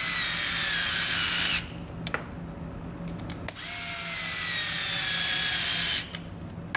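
Small cordless electric screwdriver driving screws into a plug's housing, running in two spells of a couple of seconds each. Its whine drops slowly in pitch as the motor slows under load, with a few clicks in the pause between.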